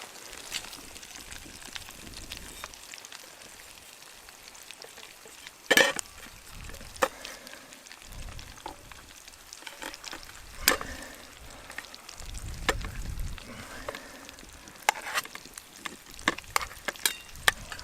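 Eggs frying in a pan, sizzling steadily, with scattered sharp clicks and knocks, the loudest about six seconds in and again near eleven seconds.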